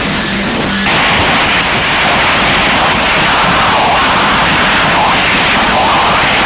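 Loud, dense static-like noise from a noise-music collage. It steps up in level about a second in, with faint wavering tones underneath.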